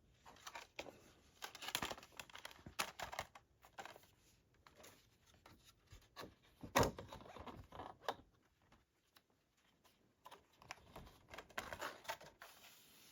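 Hands handling a Blu-ray box set's cardboard and plastic packaging: scattered scrapes, rustles and light clicks, with one louder knock about seven seconds in and a short lull a few seconds later.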